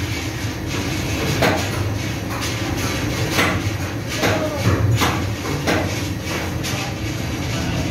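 Steady machinery hum in a ship's engine room, with sharp metallic knocks at roughly one-second intervals.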